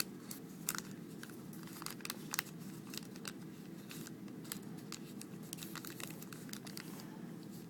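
Origami paper rustling and crinkling in the hands as its flaps are turned over and creased, in small scattered crackles over a steady low hum.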